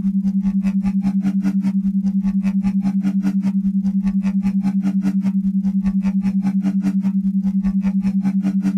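A low steady tone pulsing evenly on and off several times a second: an isochronic brainwave-entrainment tone used as relaxation and hypnotherapy audio. Faint higher notes come and go underneath.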